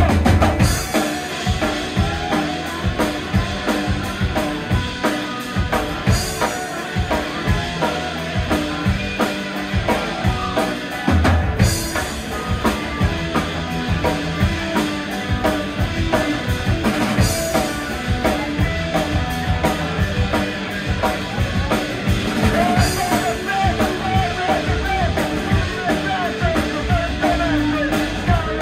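Live rock band playing an instrumental passage: electric guitars, electric bass and drum kit with a steady beat, and hard accents about every five and a half seconds.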